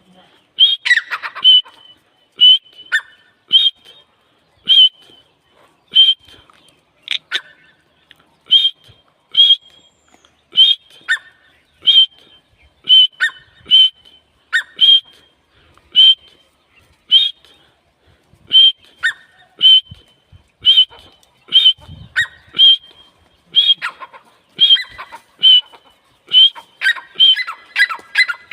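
A teetar (partridge) calling: short, loud, sharp calls repeated about once a second, some with a lower second note. In the last few seconds the calls come faster and closer together.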